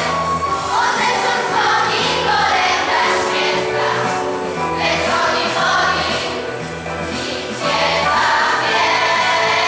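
Choir singing a Polish Christmas carol (kolęda) over sustained instrumental accompaniment.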